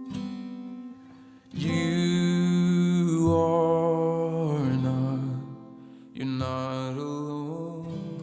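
Background song with acoustic guitar and a singing voice holding long notes, one note sliding down about halfway through.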